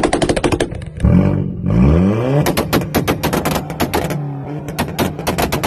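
Turbocharged car exhausts firing rapid strings of sharp anti-lag pops and bangs. About a second in the engine revs up, rising in pitch, then a long rapid run of pops follows.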